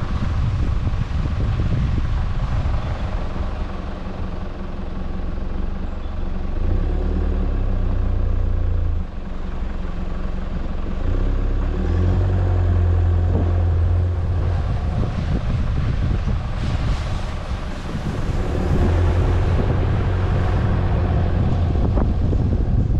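Four-wheel drive's engine running as it drives slowly along a gravel track. The engine note shifts a few times, and wind rumbles on the microphone.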